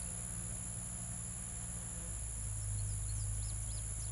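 Steady high-pitched chorus of crickets in a field over a low, steady hum, with a few short bird chirps in the second half.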